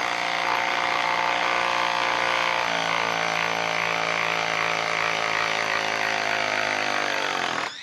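Hilti SID 4-A22 cordless impact driver running in reverse, backing a 6-inch lag screw out of a wooden log through a nut-setter socket. It is a steady motor and drive sound, with a slight change in pitch about three seconds in, and it stops just before the end.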